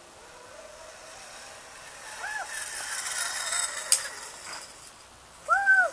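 A zip-line trolley running down its cable, its whir rising as the rider comes near, with a sharp click about four seconds in. A child whoops on the ride, briefly about two seconds in and loudly near the end.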